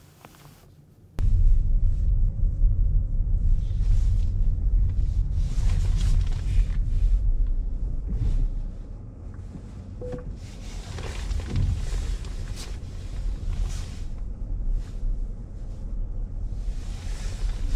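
Wind buffeting the microphone over the road rumble of a moving car, starting abruptly about a second in after a quieter stretch inside the cabin. The rumble eases somewhat after about eight seconds.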